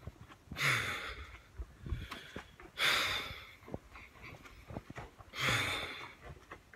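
Three loud, heavy breaths close to a phone microphone, about two and a half seconds apart.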